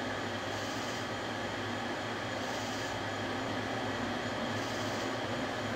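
Steady hum of a running machine motor, with a low buzz underneath and a faint hiss that swells slightly about every two seconds.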